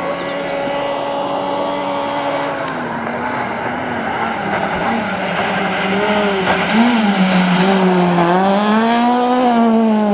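Citroën C2 rally car's four-cylinder engine at full effort on a gravel stage, approaching and growing louder. From about six seconds in its revs swing up and down as the driver works through a bend, with gravel spraying from the tyres.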